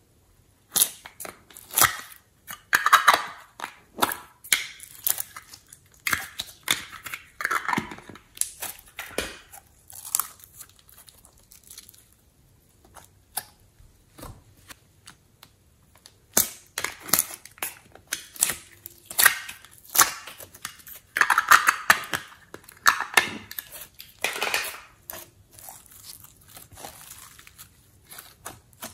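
Hands squishing and pulling sticky slime: an irregular run of wet crackles and pops, with a few longer tearing sounds as the slime is pulled apart.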